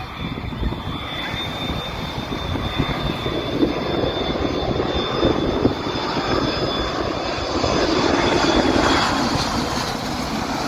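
Airplane engines running, with a high whine over a rushing noise that grows louder and peaks near the end.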